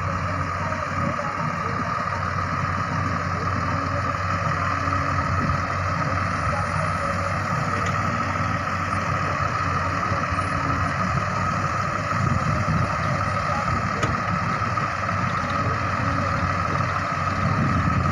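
Ace AX130 backhoe loader's diesel engine running steadily as the machine works, with a steady high whine above the low engine note.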